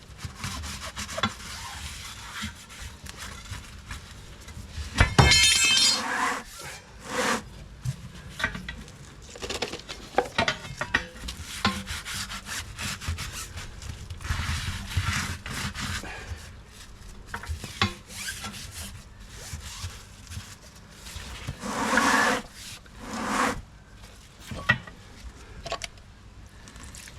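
Stiff brush scrubbing soapy water around a tyre bead and wheel rim in repeated short strokes, lubricating the bead so the tyre slips up into place on inflation. A loud metallic clank rings out about five seconds in.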